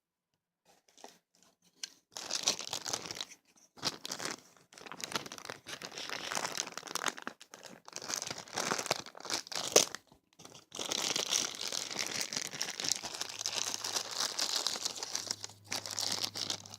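The foil blind bag of a Funko mystery mini being crinkled and torn open by hand: irregular crinkling and tearing, with one sharp crackle about ten seconds in and steadier crinkling after that. The first second or so is near silent.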